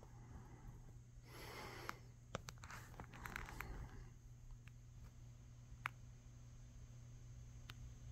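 Faint scuffling and rustling in two stretches during the first half, then a few isolated sharp clicks, over a steady low hum.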